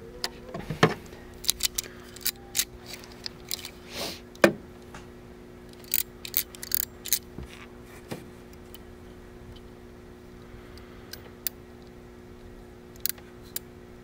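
Clicks and rattles of a hand-held RJ-45 crimping tool being handled and its jaws worked, with a sharp snip near the end as its cutter blade trims the Ethernet cable's wires to length. A steady low hum runs underneath.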